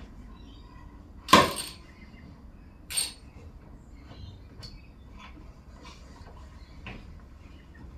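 Metal hand tools clinking and knocking while bolts are nipped up with a socket: two sharp clanks about a second and a half apart, then a few lighter clicks and taps.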